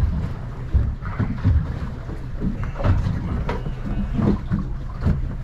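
A boat's engine running at low speed as the boat slows to a stop, a steady low rumble with irregular thumps.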